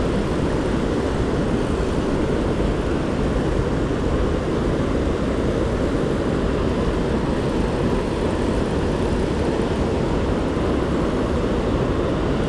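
Steady rushing of stream water, an even noise with no breaks.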